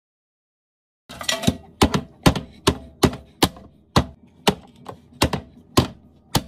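A plastic push-down vegetable chopper being slammed shut again and again by hand, dicing vegetables: sharp clacks about two a second, starting about a second in.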